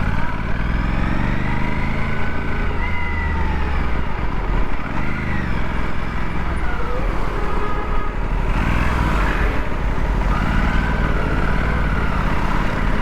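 Aprilia RS 457's parallel-twin engine running under way, revs rising and falling several times, over a steady low wind rush.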